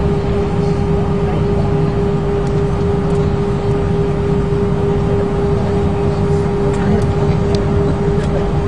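Airliner jet engine heard from inside the cabin, running loud and steady: a low rumble under a constant hum.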